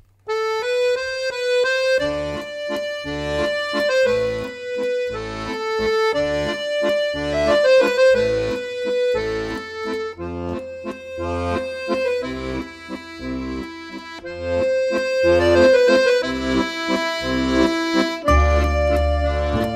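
Instrumental background music: a held melody line over a steady alternating bass-and-chord accompaniment.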